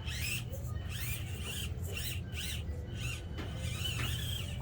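Young children squealing and calling out in short high-pitched cries, one after another, over a steady low hum.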